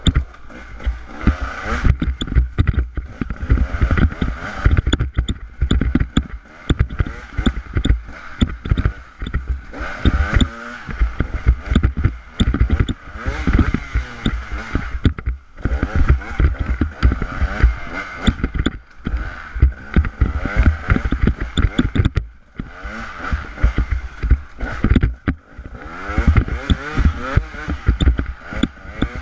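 Dirt bike engine ridden hard over rough trail, revving up and down as the throttle opens and closes, with many knocks and clatters from the bumpy ground and short dips where the throttle is rolled off.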